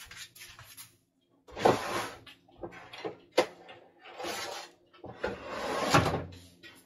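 Off-screen rummaging: a few short clattering, rustling bursts and one sharp knock about three and a half seconds in, as a roasting pan and its trays are fetched.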